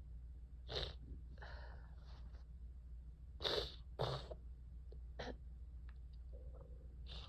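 A person with a cold of more than a week sneezing in several short, sudden bursts, the loudest a pair about halfway through, with quieter breathy sounds between.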